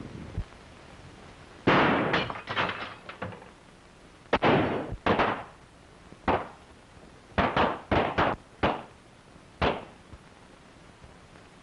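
A gunfight: more than a dozen gunshots fired at irregular intervals, some in quick runs, each with a short echo. The loudest shot comes about two seconds in, and the last comes near the end.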